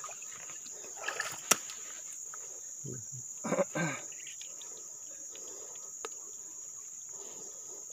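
Insects shrilling in a steady high-pitched drone, with a single sharp click about a second and a half in and a short vocal sound a little past the middle.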